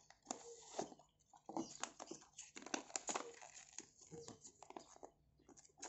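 Faint rustling and crinkling of packaging as a foil bag and a paper instruction leaflet are handled, with scattered small crackles and clicks.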